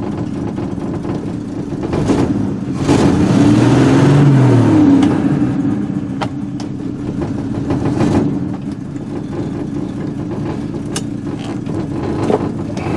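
1968 Chevy pickup's engine idling, revved up and back down once about three seconds in. A few sharp clunks come as the three-on-the-tree column shift lever is worked in search of reverse.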